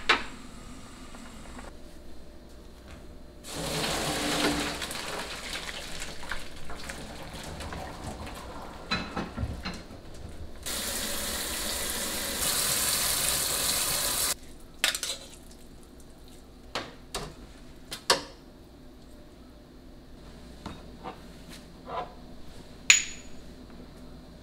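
Cooked noodles drained and rinsed in a stainless-steel mesh colander over a kitchen sink. Water splashes into the colander from about four seconds in, and tap water then runs steadily onto the noodles for about four seconds before stopping suddenly. After that come scattered light knocks and clinks of dishes and cups.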